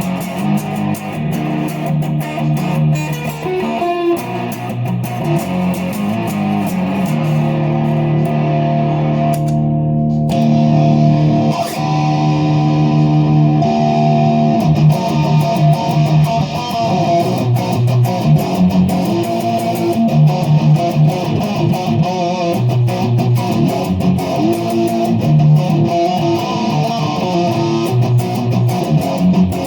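Epiphone Les Paul SL electric guitar fitted with a Fender humbucker pickup, played as a sound test: chords and picked notes. One chord is left ringing for several seconds about a quarter of the way in.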